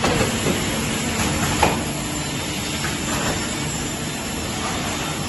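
Twin-shaft vertical multi-rip circular saw machine with 300 mm blades running, a steady whirring hum broken by a few sharp knocks in the first two seconds.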